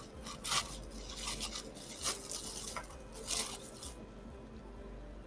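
Handling noise of used wood-mounted rubber stamps being rummaged through and picked up: several short, scratchy rustles over the first four seconds, then they stop.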